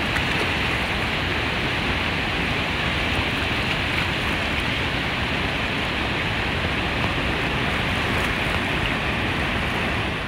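White-water river rapids and a waterfall rushing steadily, an even, unbroken hiss of churning water.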